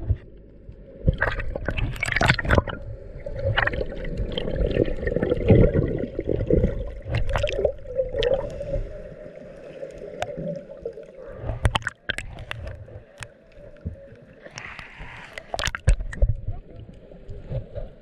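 Water sloshing and gurgling around a camera held at and just below the surface, muffled, with irregular splashes and sharp clicks and knocks throughout.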